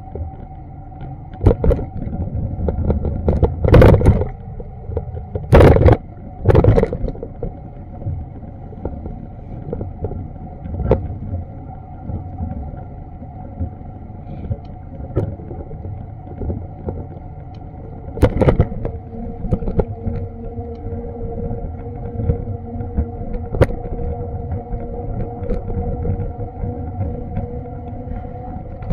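City street ambience picked up on an action camera's microphone while walking: a steady low rumble with a faint steady hum, broken by a few loud knocks or bumps, three close together a few seconds in and one more about two-thirds of the way through.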